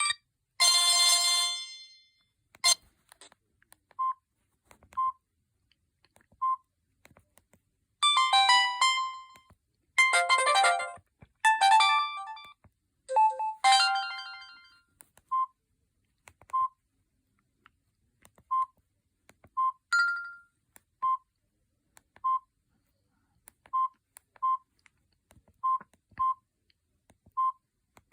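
Samsung GT-E1150 mobile phone's loudspeaker playing short snatches of its preset ringtones, each cut off after a second or two. Short single beeps at one pitch recur at irregular intervals about a second apart.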